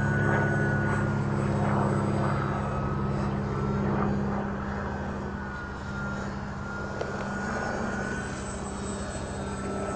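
The twin electric motors and propellers of a TwinStar radio-controlled model plane in flight, a high whine that wavers slightly in pitch over a steady low drone, the whole slowly getting quieter.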